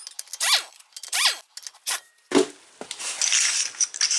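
Pneumatic impact wrench run in two short trigger bursts, each spinning up and down in pitch, as wheel nuts are taken off. A knock follows a little after the middle, then a steady high hiss of air.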